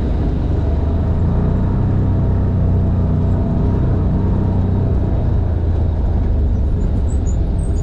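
Side-by-side UTV's engine running steadily under way on a dirt track, a low, even drone, heard from the driver's seat.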